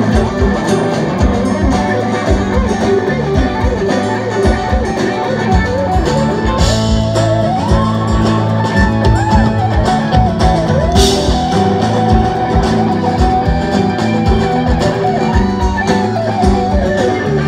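Live band playing an instrumental passage: steady acoustic guitar under an electric guitar lead that winds and bends between notes, over bass and drums, with two brief crashes about 7 and 11 seconds in.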